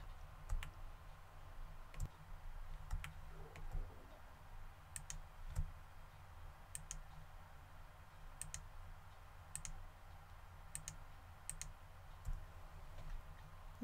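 Faint computer mouse clicks, a dozen or so, many in quick pairs, as mesh faces are shift-clicked one by one to add them to a selection.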